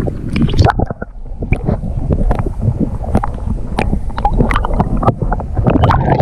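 Wind buffeting the camera microphone in a low rumble, with irregular knocks and rattles from gear and movement in a fishing boat.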